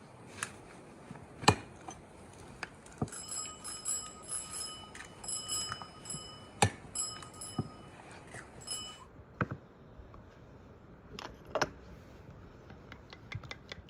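Metal kitchenware clinking and knocking, with a ringing metallic tone struck repeatedly for several seconds in the middle.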